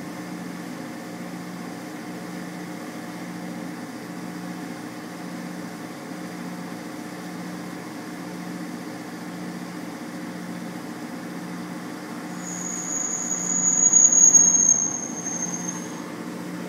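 Truck engine idling with a steady low drone that pulses about once a second. About twelve seconds in, a loud high-pitched squeal rises over it, holds for about three seconds and stops.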